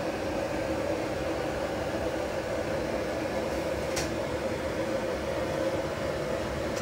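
Steady mechanical hum with a constant low drone, like a kitchen fan, and one short sharp click about four seconds in.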